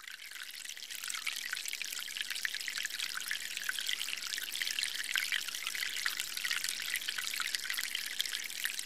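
Sound effect of liquid trickling and pouring, a steady fizzy patter of small drips that fades in at the start, standing for fuel running through the filter into a chainsaw carburettor's fuel chamber.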